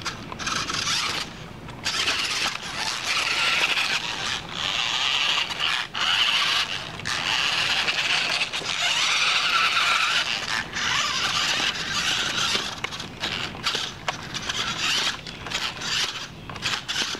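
Toy-grade Maisto RC rock crawler's small electric motor and gearbox whining as it crawls over rocks, starting and stopping with the throttle in short runs.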